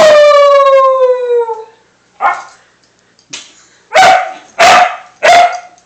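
Border Collie–Labrador mix puppy howling: one long howl that slides down in pitch, then short barking calls, the last three loud and about two-thirds of a second apart.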